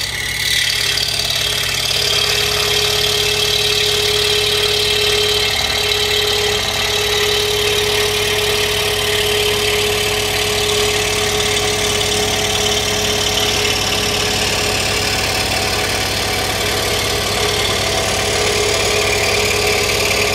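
Scroll saw switching on and running steadily, its reciprocating blade cutting along a line through a wooden board, with a steady motor hum and the hiss of the cut.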